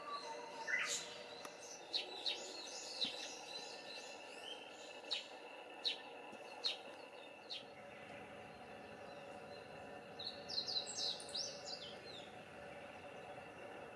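Wild birds calling outdoors: short sharp chirps scattered through, then a quick run of high chirps about ten seconds in, over a steady faint drone.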